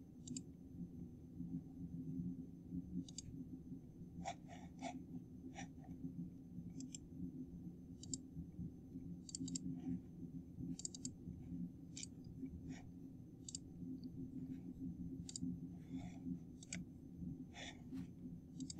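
Computer mouse clicks at irregular intervals, some in quick runs of two or three, over a faint steady low hum.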